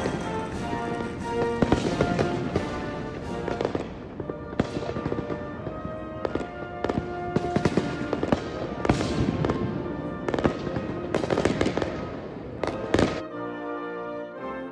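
Aerial fireworks shells bursting in a rapid string of sharp bangs, with music playing alongside. Near the end the bangs stop briefly and only the music is left.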